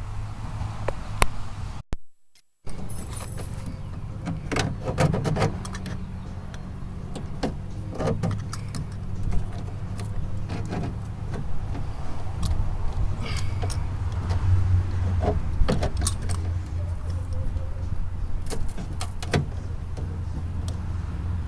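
Metal clinks and knocks of tools and parts being handled while working inside a car door, scattered and irregular, over a steady low hum. The sound cuts out briefly about two seconds in.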